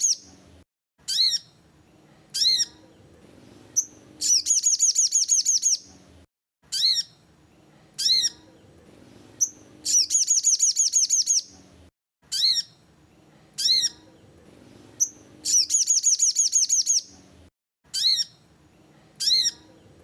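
Sogon (crimson sunbird) song: a few separate sharp, high chirps followed by a fast, ringing trill of about a dozen high notes lasting about two seconds. The same phrase repeats about every six seconds, three times over.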